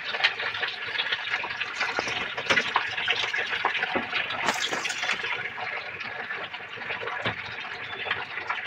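Water running steadily, with light clicks and knocks from plastic fittings and tubing being handled.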